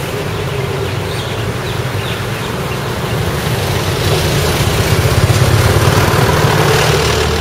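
Road traffic: car and motorbike engines running steadily. It grows louder past the middle as a pickup truck and two motor scooters pass close by.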